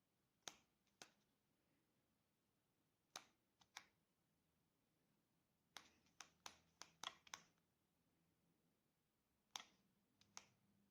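Near silence broken by faint, sharp clicks: a pair about half a second in, a few around three to four seconds, a quick run of about seven between six and seven and a half seconds, and two or three more near the end.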